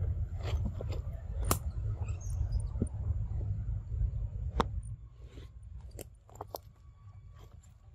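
Scattered sharp clicks and snaps over a low rumble; the rumble drops away about five seconds in.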